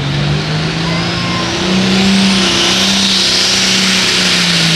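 Engine of a 466 hot farm class diesel pulling tractor running hard under load. It revs up about a second and a half in and then holds steady, with a high whistle rising over it.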